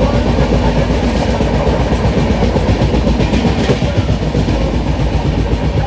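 Express passenger train running at speed: a loud, steady rumble and rattle of the coach wheels on the track, heard from an open coach door.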